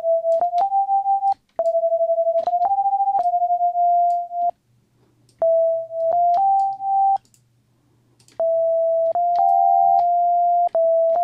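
Serum software synth with two sine-wave oscillators playing short runs of three or four notes that step up and back down, in bursts separated by pauses of about a second. There is a click at the start and end of each note, and the level wobbles rapidly on some notes. The oscillators are set slightly apart in phase to make the tone sound wide in stereo.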